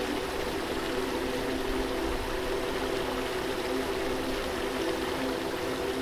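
Steady rush of a waterfall's flowing water, even and unbroken, with a faint steady low hum of held tones beneath it.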